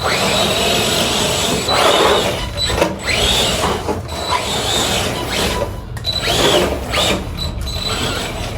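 ARRMA Granite 3S brushless RC monster truck being driven in repeated bursts of throttle, its motor whine rising and falling over the noise of the drivetrain and tyres.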